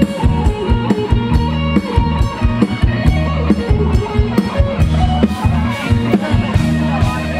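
Live rock band playing an instrumental passage: electric guitar over bass and a drum kit, with no singing, heard through the stage PA.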